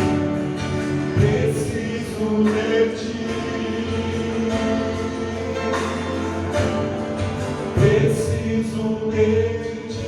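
Gospel worship music: voices singing a praise song over instrumental accompaniment, with percussion hits.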